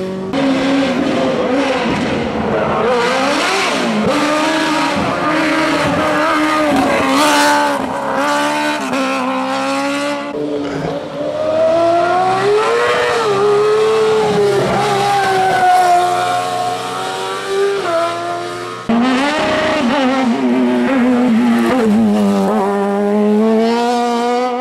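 Race car engines accelerating hard through the bends, one car after another, the pitch climbing and then dropping back at each gear change. The sound jumps abruptly about three-quarters of the way through.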